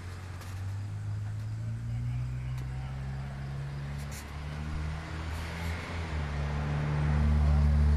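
An engine idling steadily, a low hum that shifts pitch slightly a few times and grows louder near the end.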